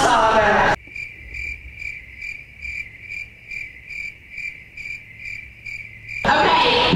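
Loud crowd and voices cut off abruptly about a second in, giving way to a cricket chirping in an even, high-pitched pulse about two and a half chirps a second. Loud crowd and music come back just as abruptly near the end.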